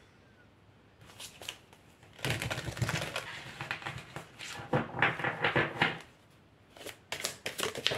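A deck of oracle cards shuffled by hand: cards flicking and slapping against each other in two spells of rapid clicking, about two and five seconds in, with a few more card clicks and taps near the end.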